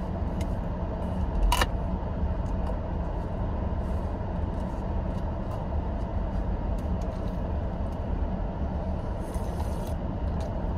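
Steady low rumble of a car's idling engine, heard from inside the cabin, with a brief sharp click about a second and a half in.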